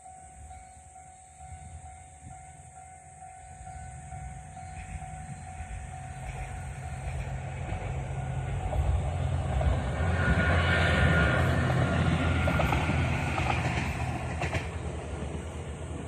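Moka Railway train approaching and passing over a level crossing, its engine and wheel-on-rail noise building to a peak about ten seconds in and then fading. A level crossing's warning bell rings in a steady repeating pattern at first and is drowned out as the train arrives.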